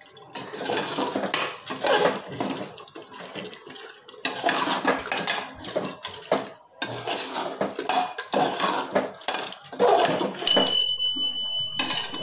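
Steel ladle stirring and scraping thick masala in an open aluminium pressure cooker: irregular metal-on-metal scrapes and clinks with short pauses. A thin, steady high tone starts near the end.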